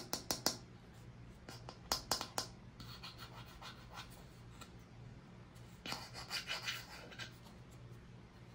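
Toys being handled by hand: clusters of sharp clicks and taps at the start and again about two seconds in, then a stretch of scratching and rubbing about six seconds in.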